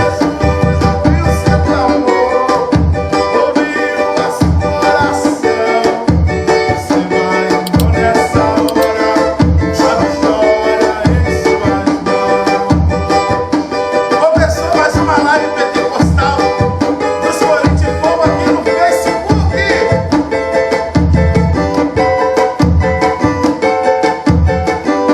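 Cavaquinho strummed with tantan drum beats in a fast Pentecostal corinho rhythm.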